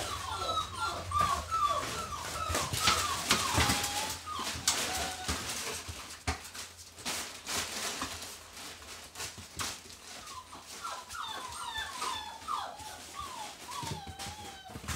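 Puppies whining and whimpering in quick runs of short, wavering high calls while they play-fight, in two bouts: for the first few seconds and again over the last four or so. Scattered clicks and scuffles run between them.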